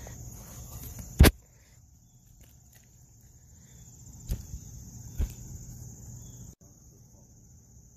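Steady high-pitched chorus of insects, crickets or similar, with a sharp, loud thump about a second in and two lighter knocks around four and five seconds in.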